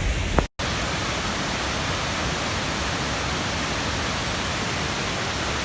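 Steady rushing roar of a waterfall, broken once by a brief dropout about half a second in.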